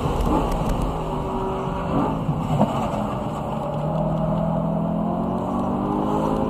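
BMW E92 M3's V8 engine running under lapping load: the engine note falls, with two short sharp sounds about two seconds in, then climbs steadily again as the car accelerates.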